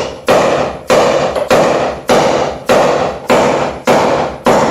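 A big hammer pounding a 2x4 braced against the bent sheet metal of a car's door opening, knocking the body back into shape: about eight heavy blows in a steady rhythm, a little under two a second, each ringing briefly and fading before the next.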